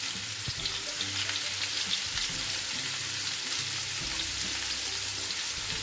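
Raw mango pieces frying in hot oil in a kadhai: a steady sizzling hiss with small crackles.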